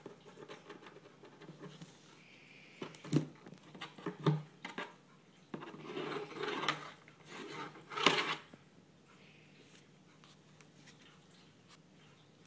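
Cat rolling and clawing inside a cardboard box: scattered scrapes, rustles and knocks on the cardboard, in bursts about three, four, six and eight seconds in, then quieter.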